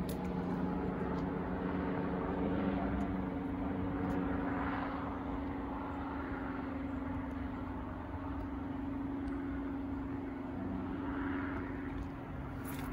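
Steady drone of a distant engine, a constant hum over a low rumble; the hum steps up in pitch within the first few seconds and then holds steady.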